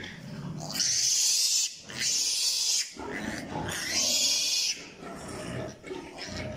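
Newborn piglet squealing: three loud, shrill squeals, each just under a second, then quieter calls near the end.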